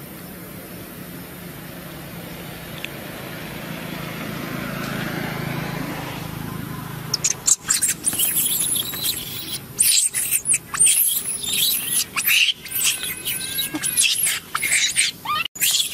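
Baby macaque screaming in repeated high-pitched, wavering shrieks, starting about halfway in after a stretch of steady hiss. It is protesting as its mother pushes it away from nursing.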